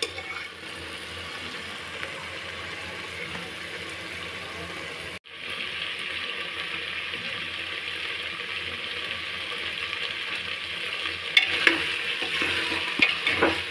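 Chickpeas and masala sizzling as they fry in a pressure cooker. The spatula stirs through them, and near the end the metal spoon clicks and scrapes against the pot. The sizzle breaks off for a moment about five seconds in.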